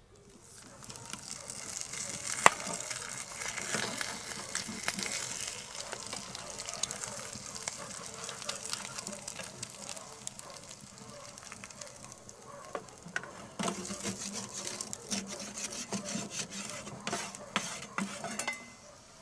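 Eggs frying in a cast-iron frying pan on a wood-burning camp stove: a steady sizzle with many sharp clicks and scrapes as the pan and utensils are handled. The sizzle dips around 12 seconds in, comes back stronger a little later, and stops near the end.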